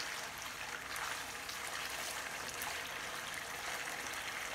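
Mutton pieces frying in their own juices and fat in a nonstick kadhai over high heat, a steady sizzle and bubble with fine crackles, stirred with a silicone spatula: the bhuna stage, cooking off the liquid.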